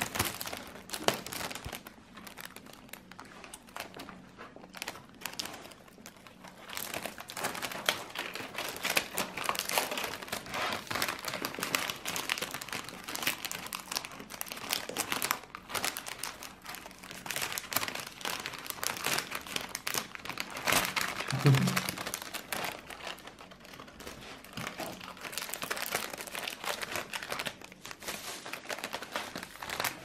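Plastic food packaging crinkling and rustling in irregular bursts as a green-cheeked conure bites and tugs at the wrapper of a bread-stick pack. One brief low bump comes about two-thirds of the way through.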